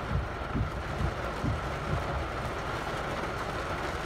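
Very heavy rain pouring onto a car's roof and windshield, heard inside the cabin as a steady roar with irregular low thumps.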